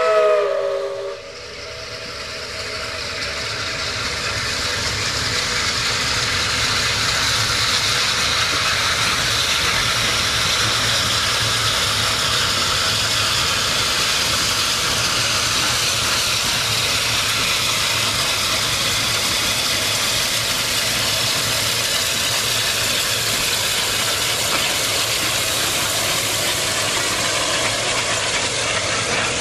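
Steam whistle of East Broad Top Baldwin 2-8-2 Mikado No. 15, several tones sounding together, cutting off about a second in with its pitch sagging as it dies. Then a steady, loud hiss of escaping steam from the locomotive.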